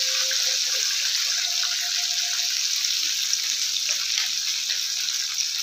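Flour-coated chicken fillets deep-frying in hot oil in a pan: a steady sizzle with small crackles.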